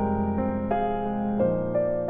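Background music: a slow, gentle solo piano piece, with new notes struck every half second or so.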